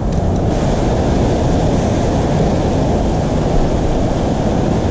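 Ocean surf surging and washing against a rock ledge, a steady, unbroken rush of water, with wind rumble on the microphone.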